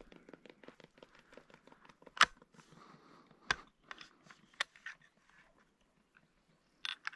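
A fast run of faint clicks, then single sharp knocks and clicks about two, three and a half and four and a half seconds in, and a brief cluster of clicks near the end: a scoped rifle being handled and lowered on a vehicle roof.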